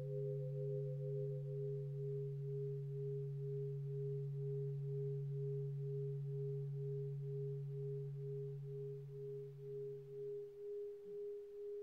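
Sustained meditation tones: a higher ringing tone that wavers in an even pulse, over a low steady hum that stops about ten seconds in, the whole fading away at the end.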